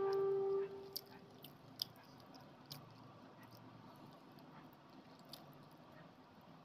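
Eating rice and egg curry by hand: wet smacking clicks of the mouth and soft chewing, with rice being squished between the fingers. In the first second a short steady tone sounds, the loudest thing in the clip.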